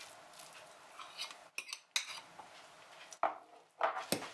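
Metal fork scraping and clinking against glass bowls as soft cottage cheese is scraped in and stirred into beaten eggs, with several sharp clinks.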